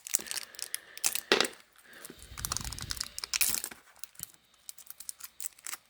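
Hand handling of packaging and small hard parts: scattered clicks and knocks with a stretch of rustling about two seconds in.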